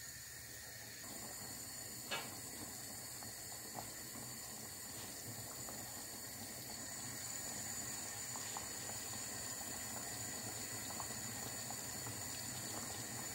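Pot of red beans and pumpkin stew simmering on the stove: faint, steady bubbling, with a small tick about two seconds in.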